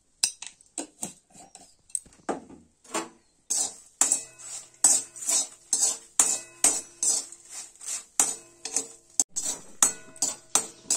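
Perforated metal frying spoon scraping and knocking against a metal kadai while stirring salt and whole dried red chillies being dry-roasted, with the pan ringing after each stroke. A few scattered clinks at first, then a steady rhythm of about two strokes a second.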